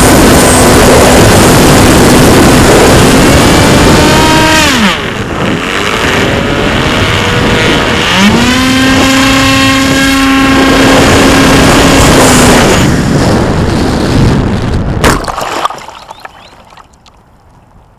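Onboard sound of a Skyfun electric RC foam plane in flight: wind rushing over the camera microphone with the motor and propeller whine. The whine falls away as the throttle is cut about four and a half seconds in, rises back and holds a few seconds later, then stops. About fifteen seconds in comes a sharp smack as the plane hits the water.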